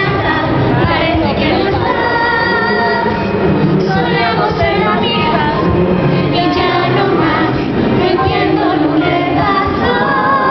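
A woman singing into a microphone over backing music, with long held notes that waver in pitch.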